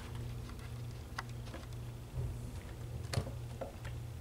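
Plastic housing of a Qolsys IQ alarm panel clicking onto its mounting bracket: a few light clicks and taps, the sharpest about three seconds in.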